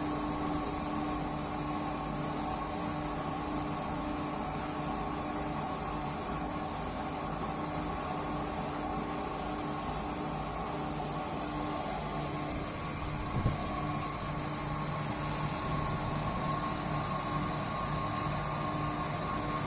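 Home-built CNC router running: a steady mechanical whine with several held tones, and one brief knock about thirteen seconds in.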